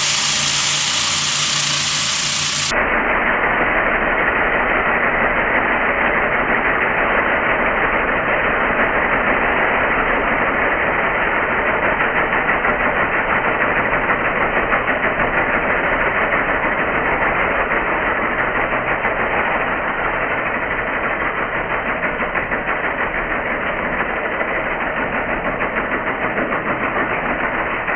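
Makita TW001G 40V high-torque impact wrench hammering continuously under load as it drives a large 7 mm stainless timber screw. The screw needs impacting all the way in.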